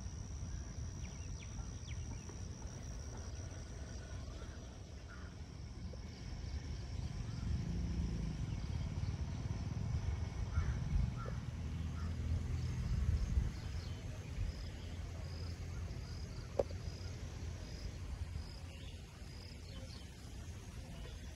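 Outdoor field ambience: an unsteady low rumble with faint insect sounds, a thin high whine in the first few seconds and soft high chirps repeating about once a second in the second half.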